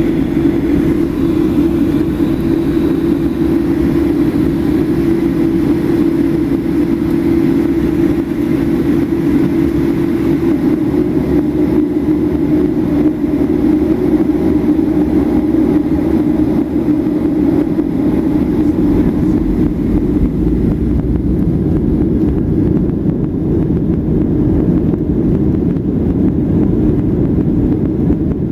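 Cabin noise of a Boeing 737-800 taxiing, heard from a seat over the wing: its CFM56 jet engines running steadily at low taxi power as a hum over a continuous low rumble.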